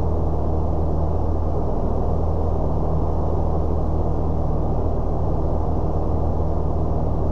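Citabria 7ECA's piston engine and propeller in flight, a steady low drone with a few even engine tones and no change in power.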